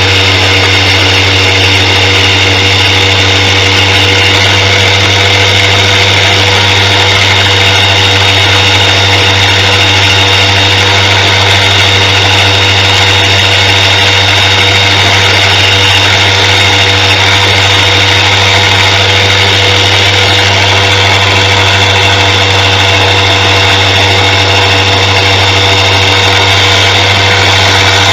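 Electric bench grinder with a sharpening wheel running steadily, a low mains hum under a steady whirr, while a knife edge is worked against the spinning wheel.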